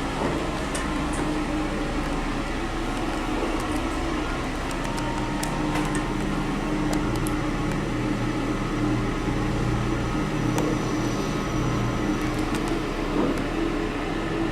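Steady hum inside a passenger lift car, with a low held tone and an even fan-like noise.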